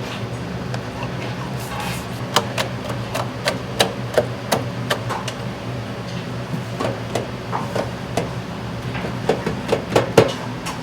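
Irregular sharp knocks and clicks of kitchen utensils being worked, some with a brief ring, over a steady low hum.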